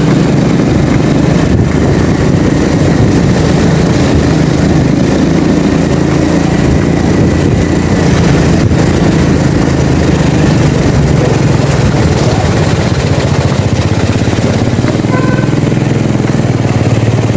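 Motorcycle engine running steadily while riding along, a continuous low hum with no change in pace.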